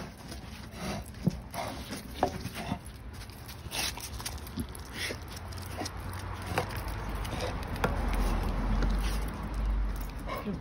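Bull terrier moving about and nosing a rubber car tyre on concrete: scattered light clicks and knocks from its claws, chain collar and the tyre. A low rumble builds about seven seconds in and fades near the end.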